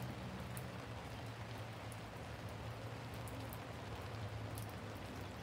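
Steady rain falling on the tent canopy overhead, with scattered sharp drop ticks, over a low steady hum.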